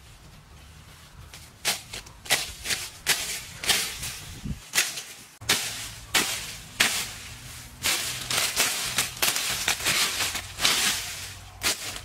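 Dense leafy brush being handled: a quick, irregular series of sharp rustling swishes and snaps of leaves and twigs, starting a couple of seconds in and easing off near the end.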